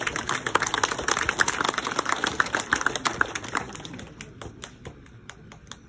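A small crowd applauding: dense, irregular clapping that thins out and fades after about four seconds.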